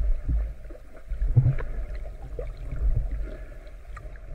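Underwater camera sound: a low, uneven water rumble that swells and fades, with a few faint clicks.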